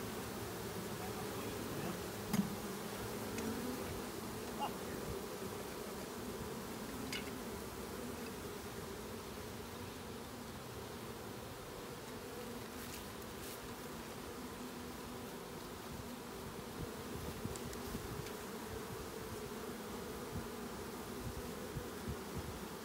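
A swarm of honeybees buzzing in a steady, low hum. A few light clicks or knocks sound over it, the sharpest about two seconds in.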